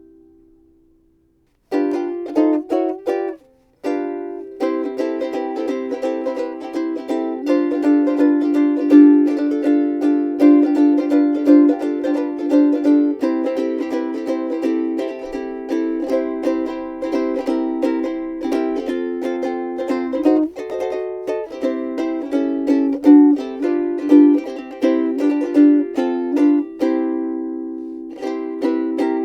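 Seilen SLVS-810 vintage-style soprano ukulele with a Brazilian rosewood body, played solo in plucked notes and chords. It starts after a short silence, with a brief break about three and a half seconds in, then plays on without stopping.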